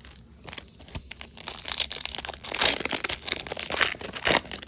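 Foil wrapper of a baseball trading card pack being ripped open and crinkled by hand: dense crackling and rustling with sharp crinkles, loudest about halfway through.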